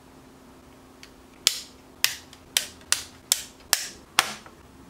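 Sharp plastic clicks, about seven of them roughly half a second apart, as the snap-fit sections of a Kato N-scale platform kit are clicked together.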